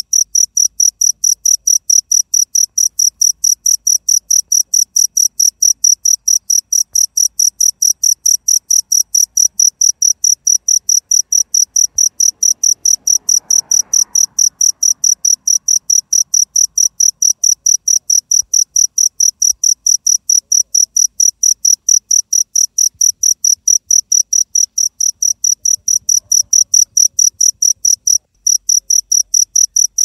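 A cricket chirping steadily: an even run of high-pitched pulses, about four a second, with a brief break near the end.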